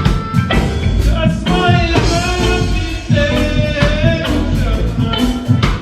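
Roots reggae band playing live: deep bass and steady drums with a bending melodic line on top.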